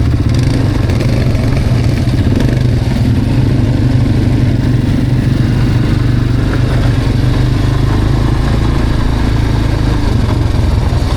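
Quad bike (ATV) engine running steadily as it is ridden, a loud continuous low drone with only slight changes in pitch.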